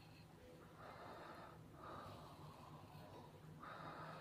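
Near silence, with three faint soft swishes as a kitchen knife is drawn through raw chicken leg meat to score deep cuts.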